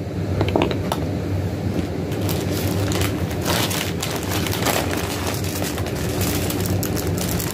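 Plastic packaging rustling and crinkling with many small crackles as items are handled, over a steady low hum.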